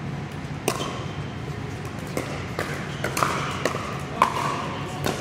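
Pickleball paddles striking the hollow plastic ball in a rally: a run of sharp pops with a short ring after each, echoing in a large hall, the loudest about four seconds in.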